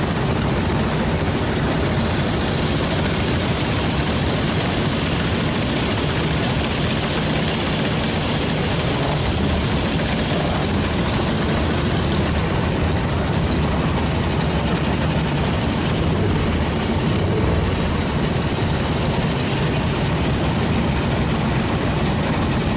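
A vehicle on the move, its engine running with a steady drone under a constant rush of wind, at an even speed throughout.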